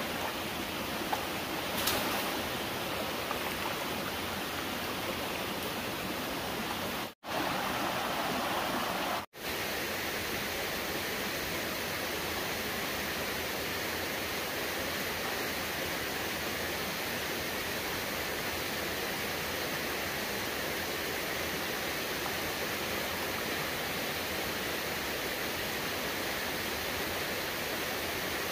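A steady rushing noise, like running water, broken by two brief cuts about seven and nine seconds in.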